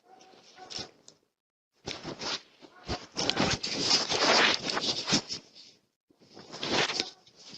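Irregular scraping and rustling close to a doorbell camera's microphone, in bursts broken by two short silent gaps, one near the start and one about three-quarters of the way through.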